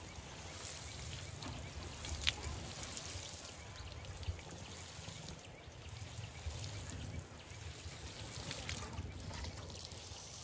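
Water showering from the rose of a metal watering can onto seedlings and soil, a steady trickle and spray. A brief sharp click about two seconds in.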